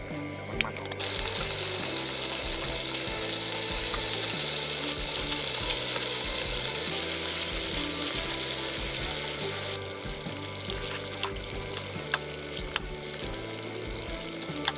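A steady, even hiss with light crackle over background music with a slow bass line. About ten seconds in the hiss drops off abruptly, leaving a softer hiss and scattered clicks.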